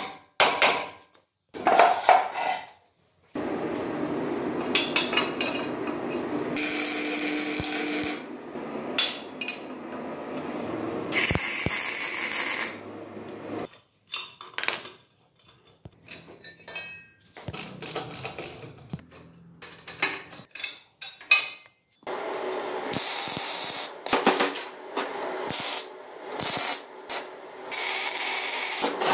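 Metal parts clanking and tools working as a sprocket hub and bearing housing are fitted onto a steel axle, in short separate bursts. From about three quarters of the way in, a MIG welder crackles steadily.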